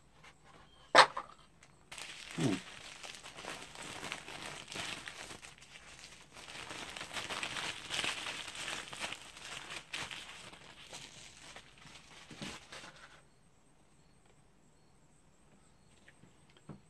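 Black tissue paper crinkling and rustling as a wrapped item is pulled open by hand, going on for about eleven seconds and stopping well before the end. One sharp knock comes about a second in, just before the crinkling starts.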